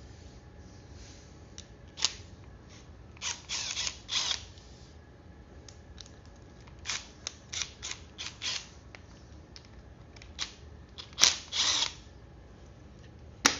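Hand tools working on a small engine's plastic carburetor as its bolts are removed: a few sharp metallic clicks and several short scraping rasps, with quiet gaps between.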